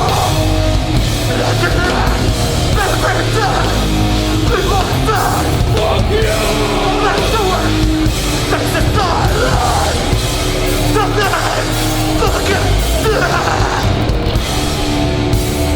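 Hardcore punk band playing live: loud distorted guitars, bass and drums, with vocals over the music through most of the stretch.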